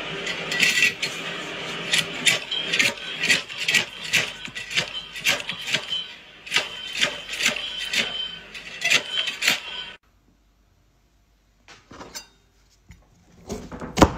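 Repeated metallic clanks and clatter from a commercial push-through vegetable cutter being worked, two or three a second over a steady hiss. After a sudden stop, a few knife taps on a wooden cutting board near the end.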